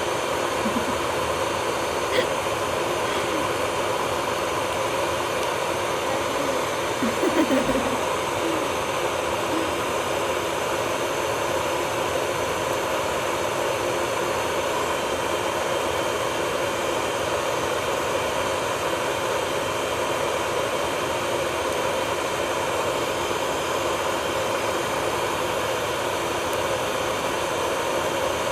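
Steady whir of small electric nail-care motors running without a break, such as an e-file drill and a dust collector fan.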